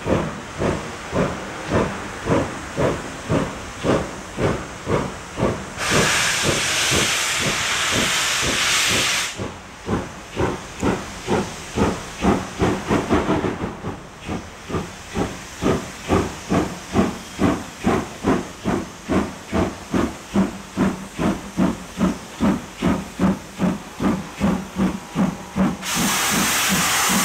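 DR class 52 2-10-0 steam locomotive labouring to start a heavy train of over 1000 tonnes on a gradient. Its exhaust beats come slowly and evenly, about two to two and a half a second. A steady hiss of escaping steam joins in for about three seconds, some six seconds in, and again near the end.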